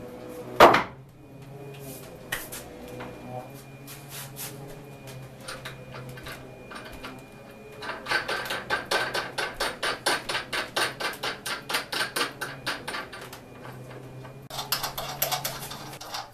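Hand-tool work on a workbench: one sharp knock, then a fast, even run of taps, about five a second, for several seconds, over a faint steady hum.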